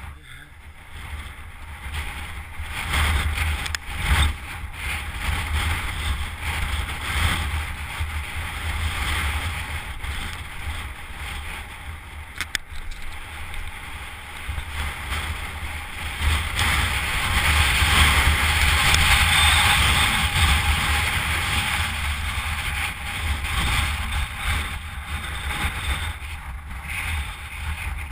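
Mountain bike ridden over a rough trail, its tyres rolling, with wind buffeting the GoPro action camera's microphone as a heavy rumble, and a couple of sharp knocks from the bike. It gets loudest about two-thirds of the way through.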